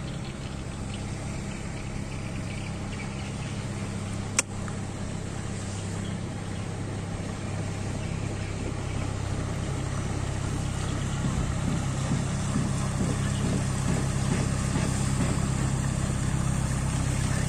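A wooden fishing boat's engine running steadily with a low, even hum, growing louder as the boat comes closer. There is a single sharp click about four seconds in.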